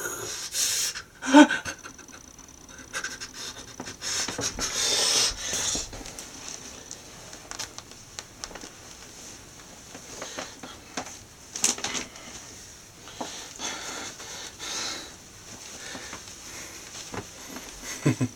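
A person breathing hard in airy puffs, with a brief vocal sound about a second and a half in, and scattered light rustles and taps throughout.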